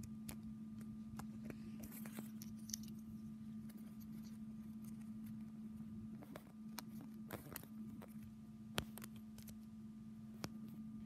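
Faint small plastic clicks and taps as LEGO minifigure parts are handled and pressed together by fingers, coming irregularly, with a sharper click late on, over a steady low hum.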